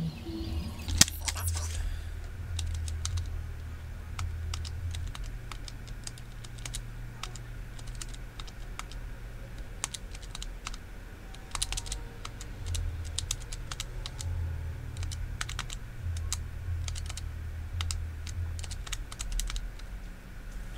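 Buttons of a handheld calculator being tapped in short runs of light clicks, one sharper knock about a second in, over a steady low hum.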